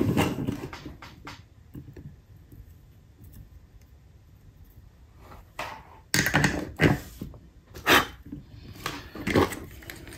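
Scattered clicks, taps and knocks of small tools and parts being handled on a workbench. A quieter stretch in the middle, then a run of louder, sharper knocks in the second half.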